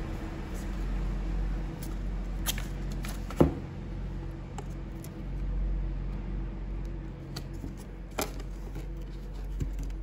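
Hands working wiring and plastic parts into a foam drone fuselage's battery bay: scattered light clicks and knocks, the sharpest about three and a half seconds in and another near eight seconds, over a steady low hum.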